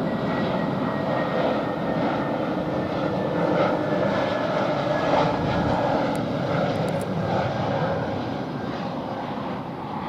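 Jet airliner's engines passing near the airport, a steady rushing noise with a faint high whine, easing off near the end.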